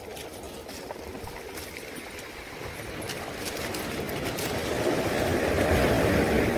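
Sea surf on a shingle beach: waves washing in, swelling to a breaking wave that is loudest near the end, with faint scattered clicks.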